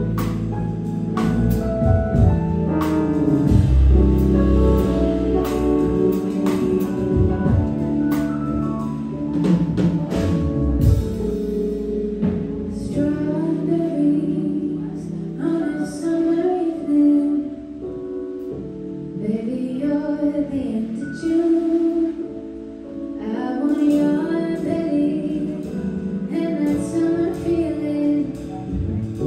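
Live band playing with guitars, drums and keyboard, with singing. The full sound with bass and drums thins out about twelve seconds in to a lighter, quieter passage, then fills out again near the end.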